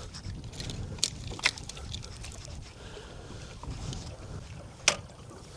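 Wind rumbling on the microphone aboard a small boat, with a few sharp knocks and clicks. The loudest knock comes near the end.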